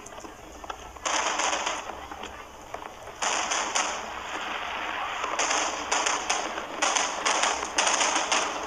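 Fireworks bursting: a sudden loud burst about a second in and another about three seconds in, then dense rapid crackling through the second half.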